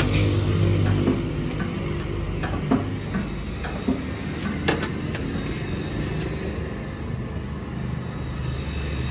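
Spot-welding machine humming steadily, with a few sharp clicks as the stainless steel seam is tacked under the electrode.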